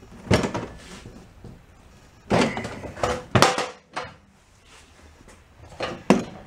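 Knocks and clunks from work on a walk-behind mower's front wheel bracket and deck: about six separate sharp knocks spread over several seconds, with quiet between them.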